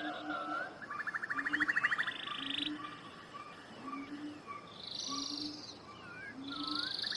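Animal calls in a nature soundscape: short chirps and whistles, a low note repeating about once a second, and fast pulsed trills that come and go.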